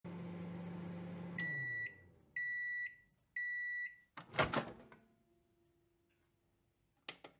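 Microwave oven running with a steady hum that winds down as it stops, then three end-of-cycle beeps about a second apart, then the door popping open with a loud latch clack about four seconds in. A couple of light clicks come near the end.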